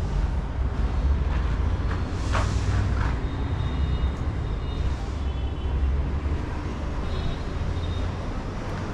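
A heavy engine running steadily with a low rumble, with a brief hiss about two and a half seconds in.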